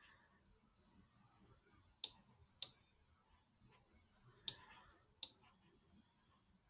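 Four sharp clicks of a computer pointer button, in two pairs about half a second apart each, as the on-screen sliders are grabbed and let go.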